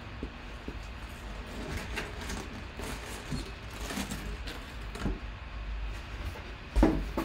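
Corrugated cardboard box being opened and slid off a bagged full-size football helmet: flaps scraping, with scattered rustles and clicks, then one sharp thump near the end.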